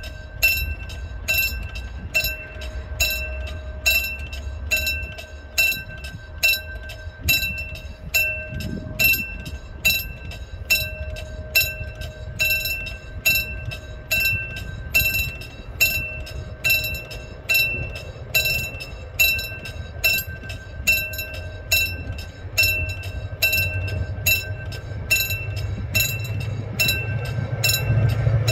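Railway level-crossing warning bell ringing evenly, about three strikes every two seconds. Under it, the low rumble of an approaching train grows louder near the end.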